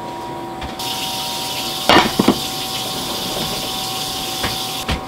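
Chicken thighs simmering in soy-based sauce in a frying pan under a glass lid: a steady high hiss of bubbling, with two sharp knocks about two seconds in. The hiss cuts off suddenly near the end.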